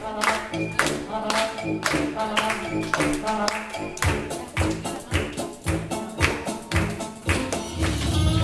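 Background music with a steady beat of sharp strikes, about two to three a second, under pitched melody notes.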